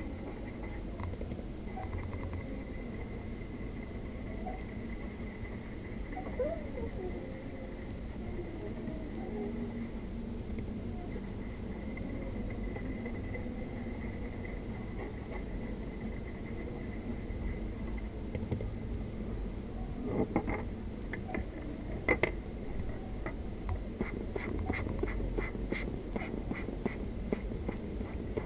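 Cotton swab scrubbing across the back of a graphics card's circuit board: a light, steady rubbing and scratching. From about two-thirds of the way in, sharper clicks and knocks join it, and near the end they come quick and dense.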